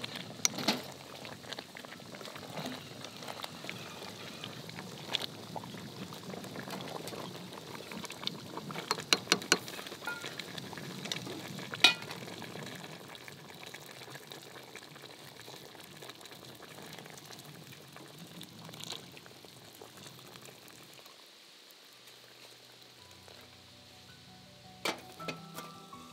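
Wild boar stew bubbling in an enamel pot, with a wooden spoon stirring and now and then knocking sharply against the pot, and water poured in from a kettle about halfway through. Soft music comes in near the end.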